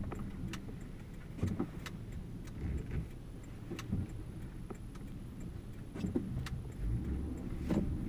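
Car driving on a snow-covered street, heard from inside the cabin: a low engine and tyre rumble with scattered light clicks and rattles.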